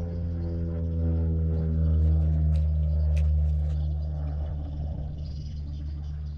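Motorboat engine droning as it passes on the river, swelling about two seconds in and fading with its pitch sinking slightly. A few faint clicks in the middle.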